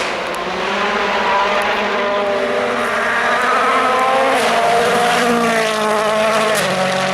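A 2016 World Rally Car's turbocharged 1.6-litre four-cylinder engine running hard on a stage. Its note climbs and drops back several times as it shifts through the gears.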